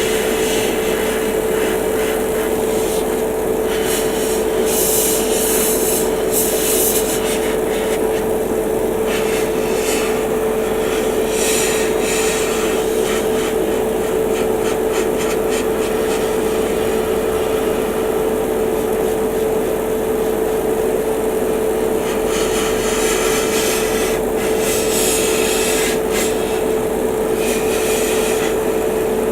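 Airbrush compressor running with a steady hum, while the airbrush sprays primer in spurts of hiss.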